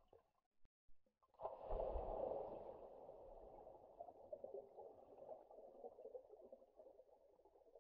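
A faint, water-like rush of noise that starts suddenly about a second and a half in and slowly fades, an added sound effect under the intro titles.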